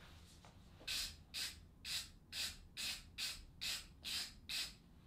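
A ratchet wrench ratcheting in short, even strokes, about eight times at roughly two a second, as bolts are backed out of a differential's ring gear.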